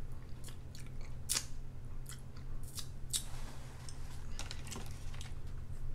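Scissors cutting through king crab shell: a series of separate sharp snips and crunches spread irregularly, over a steady low hum.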